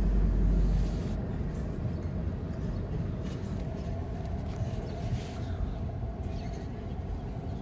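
Car engine and road noise heard from inside the cabin as the car creeps forward slowly: a steady low rumble with a faint steady hum, heaviest in the first second.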